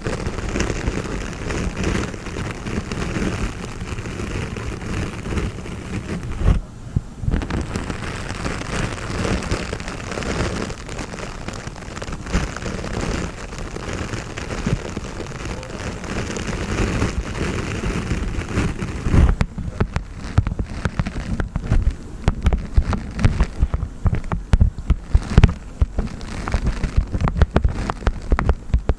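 Honeycomb wax crackling and crunching close to the microphone, in dense continuous clicks that turn sharper and more separate about two-thirds of the way in.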